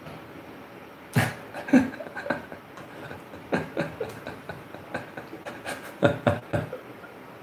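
A man laughing in short, uneven bursts that start about a second in and come again around three and a half and six seconds.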